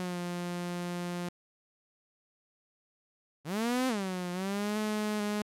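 Zebra2 software synthesizer playing a bright, buzzy note twice. The first note holds steady and cuts off about a second in. The second starts about three and a half seconds in with a quick swoop up and back down in pitch, then holds and cuts off abruptly. The pitch swoop comes from the multi-stage envelope generator modulating the oscillator's tuning.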